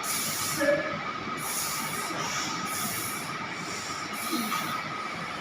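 Steady background noise with a faint hum, broken by four short, high hissing sounds about a second apart.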